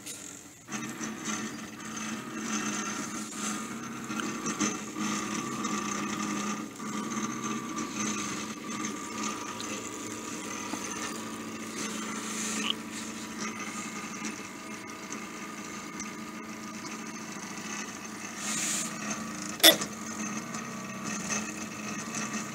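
Stepper motors of a home-built 3D printer driving its belt-driven gantry and printhead carriage through a dry run with no filament: a steady whine of several tones that shift as the moves change. A single sharp click near the end.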